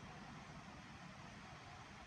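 Near silence: a faint, steady hiss of background noise with no distinct events.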